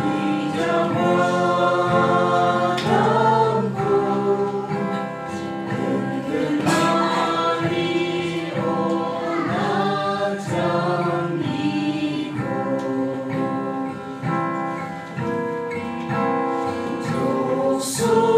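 A small mixed group of voices, men, women and a child, singing a slow hymn together with acoustic guitar accompaniment, the notes held long and moving from one to the next without a break.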